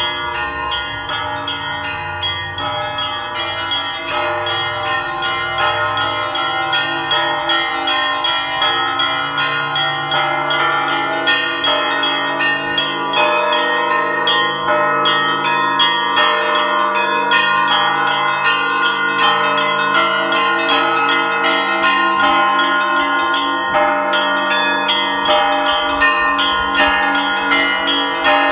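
Russian Orthodox church bells (zvon) rung together: many bells of different pitches struck in a rapid, continuous peal, with deep bells sounding under quick strokes on the smaller ones. The peal grows slightly louder over the first half.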